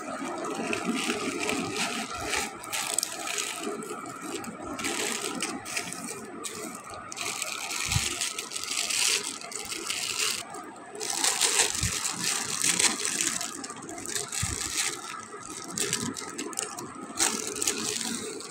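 Plastic packaging crinkling and rustling in irregular bursts as a plastic mailer bag and a clear plastic bag are handled and opened, with a few soft knocks.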